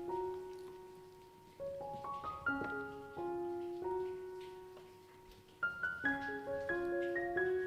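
Background piano music: short rising arpeggiated phrases, each set of notes ringing on and fading before the next phrase begins.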